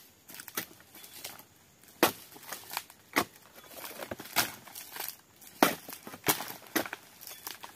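A pole-mounted chisel blade chopping into oil palm frond bases while pruning the palm: about six sharp cutting strikes spaced roughly a second apart, with crackling and rustling of the fibrous stalks in between.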